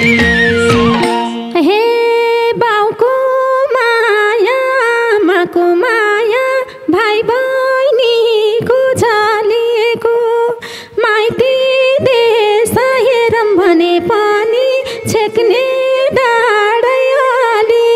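Nepali folk music in which the madal and keyboard rhythm section drops out about a second and a half in. What remains is a single melody line, unaccompanied, sliding and wavering in pitch.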